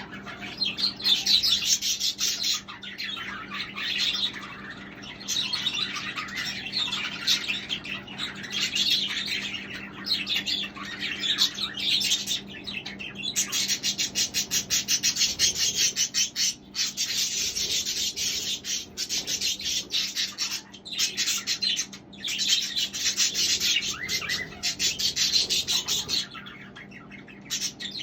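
A flock of budgerigars chattering and warbling continuously, a dense mix of rapid chirps and scratchy clicking calls.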